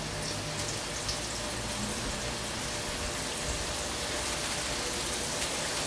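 Oil sizzling steadily in a wok as onion, garlic, ginger, lemongrass and galangal fry in it over a high gas flame.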